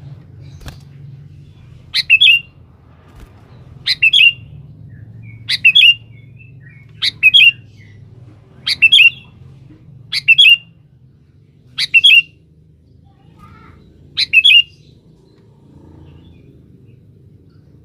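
Sooty-headed bulbul (kutilang) calling to a rival. It repeats one short, loud call phrase eight times, about every one and a half to two seconds.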